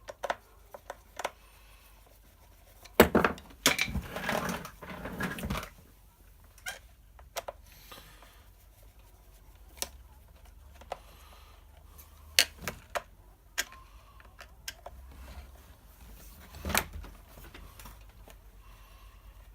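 Hand tools and metal parts working on a chainsaw cover: scattered clicks and metal clinks, with a busier stretch of rattling and knocking about three to five seconds in.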